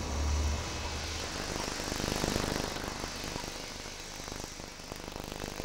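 Street traffic: a deep engine rumble that fades out within the first second, then a steady wash of traffic noise.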